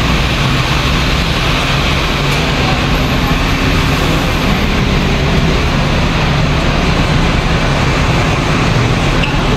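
Diesel double-decker bus idling close by, a loud, steady engine noise with a low hum and no change in pitch.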